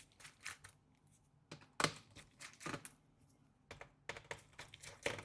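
Light, irregular clicks and taps of a precision screwdriver and small screws against a MacBook Pro's logic board and aluminium case as the board's screws are taken out.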